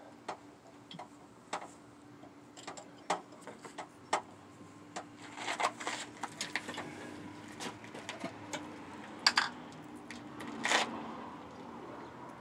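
Hand tools and metal parts clicking and clinking irregularly as work goes on inside a car's engine bay, with a faint steady hum underneath that stops near the end.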